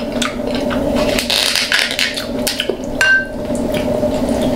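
King crab claw shells and utensils being handled on a plate: many small cracks, clicks and knocks, with one short ringing clink about three seconds in, over a steady low hum.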